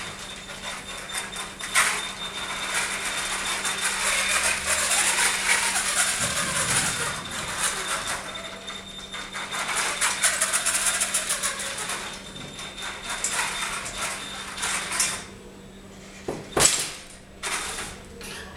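Two-wheeled self-balancing robot's drive motors and gears whirring and rattling, with clicks and knocks, as it balances and rolls on a tiled floor. Near the end comes a sharp crash as the robot topples over onto its side.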